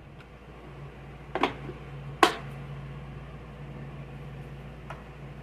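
Two sharp knocks from the socket set and its hard case being handled, the second louder, over a steady low hum.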